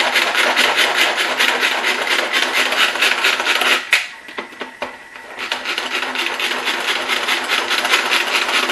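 Manual pull-cord food chopper worked over and over, a fast rattling whir of its blades mincing onion and garlic, with a break of about a second and a half near the middle.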